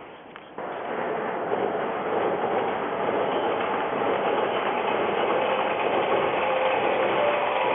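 Odakyu Line electric train running past, with a steady rush of noise and faint whining tones; the sound jumps up suddenly about half a second in and stays steady.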